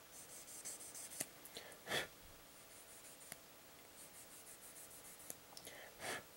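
Small plastic model-kit parts being handled and fitted together: quiet scratchy rubbing with a few sharp clicks and two short louder scrapes.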